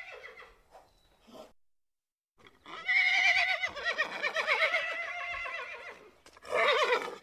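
Horse whinnying: one long quavering call of nearly four seconds, then a shorter call near the end.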